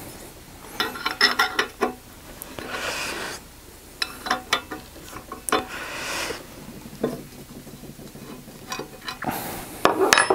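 Light metal clinks, clicks and rubbing from hands working a propeller blade on its hub, in irregular clusters, with metal tools clinking on a workbench near the end.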